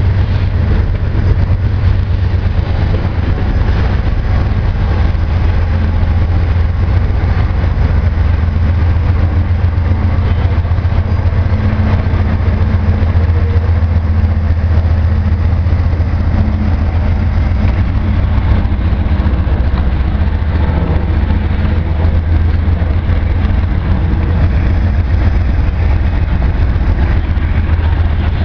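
Diesel engine of a mid-train distributed power locomotive, a Canadian Pacific GE ES44AC, working as it passes, with a deep, steady drone. Under it is the rolling rumble of a heavy train of loaded grain hopper cars.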